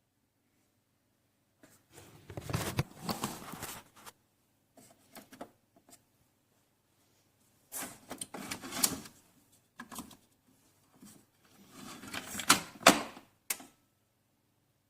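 Clicking and clattering of hard objects being handled, in three main bouts with short quiet gaps between them.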